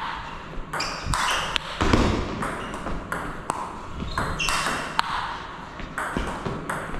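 Table tennis rally: the celluloid-type plastic ball is struck back and forth between rubber-faced rackets and bounces on the table. It makes a quick, irregular run of sharp clicks, each with a short ringing ping, in an attacker-versus-chopper exchange.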